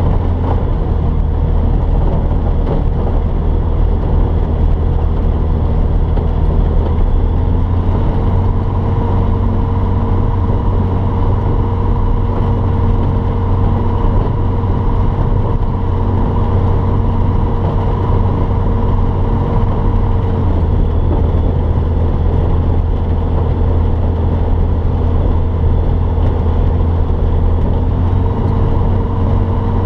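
T-10M light aircraft's piston engine and propeller running steadily, heard from inside the cockpit as the plane rolls across grass, with a slight rise in pitch about seven seconds in.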